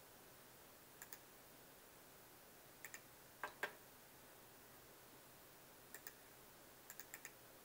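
Computer mouse buttons clicking, each click a quick press-and-release pair, in a few small groups over faint hiss. Two louder clicks come about three and a half seconds in.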